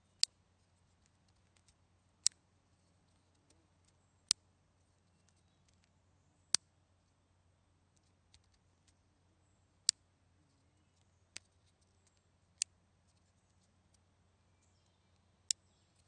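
Wooden clothespins clicking: about eight sharp, short clicks, unevenly spaced two to three seconds apart.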